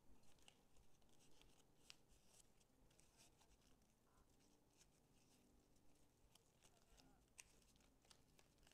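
Near silence, with faint scattered rustles and ticks of hands pressing a plaid ribbon bow and artificial pine greenery into place.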